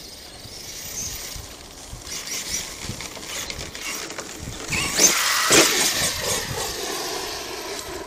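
Arrma Kraton 8S RC monster truck's brushless motor and drivetrain whining as it drives and accelerates. It is loudest about five seconds in, then winds down with a falling whine.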